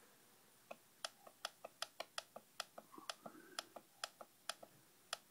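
Faint, quick clicks of the control buttons on a MindPlace Proteus mind machine, about four a second, as they are pressed over and over to step the flicker rate up toward 5 Hz.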